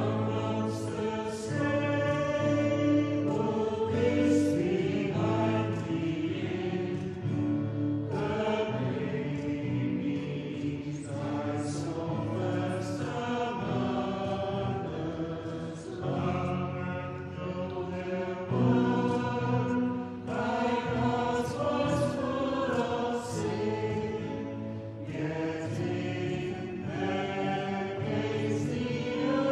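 A hymn being sung to guitar accompaniment, voices carrying the melody in unbroken phrases.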